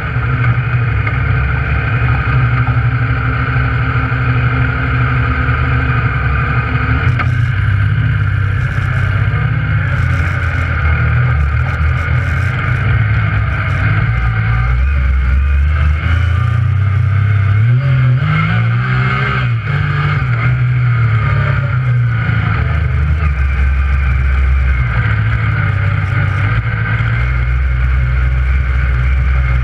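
Yamaha YXZ1000R side-by-side's three-cylinder engine running under way on a dirt trail, heard from inside the cab. The revs rise and fall a few times about halfway through as the throttle is worked.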